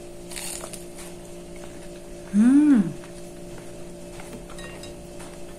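A person eating crispy fried food, giving a short, loud closed-mouth 'mmm' that rises and falls in pitch about two and a half seconds in, with a faint crunch of a bite near the start. A steady low electrical hum runs underneath.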